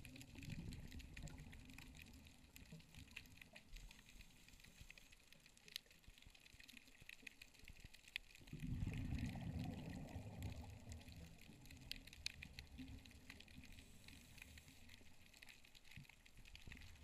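Faint underwater sound heard through a camera housing: low muffled water movement that swells for a couple of seconds a little past halfway, with scattered faint clicks and crackles throughout.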